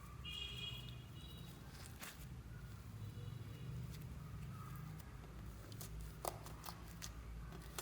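Slime being mixed and pressed by hand: faint sticky clicks and small pops, scattered irregularly over a low steady hum, with a brief squeak near the start.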